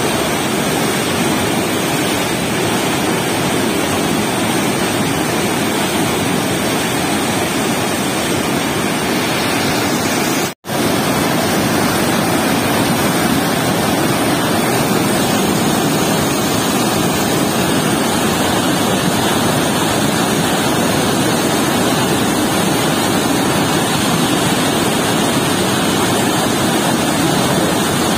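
Loud, steady rush of water pouring through a weir's sluice gate into churning whitewater, with a momentary cut to silence about ten seconds in.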